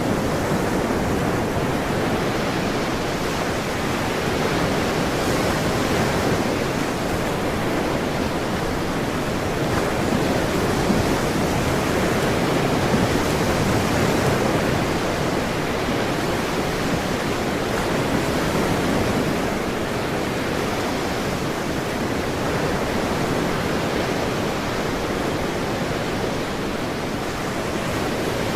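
Ocean surf: a continuous wash of waves that swells and eases every few seconds, with no distinct crashes.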